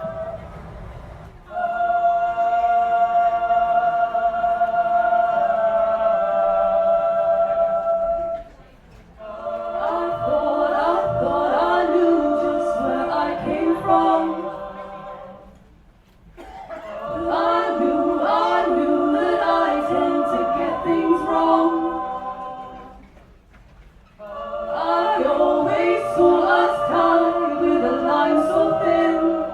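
A choir singing live: a long held chord, then three phrases with moving voices, each separated by a short pause.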